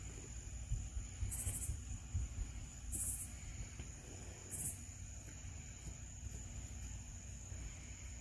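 Night insects calling: a steady high-pitched drone, with three short high buzzes about a second and a half apart. Under it, soft low thumps of hands and a knife working on a wooden table.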